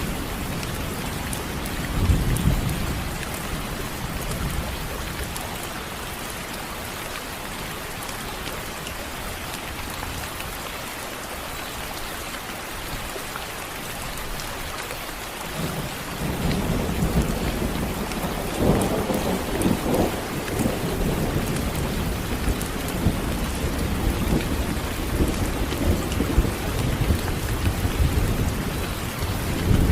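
Steady rain with thunder: a rumble about two seconds in, then from about halfway a long rolling peal of thunder, loudest a couple of seconds later, continuing under the rain.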